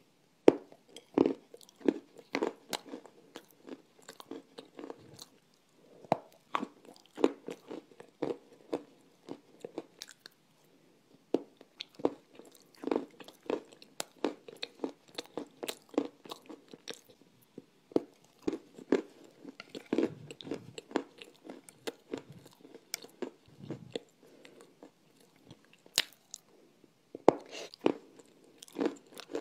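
Close-miked biting and chewing of dry, crunchy clay pieces: sharp crunches and crumbly chewing at an irregular pace, with short pauses between bites.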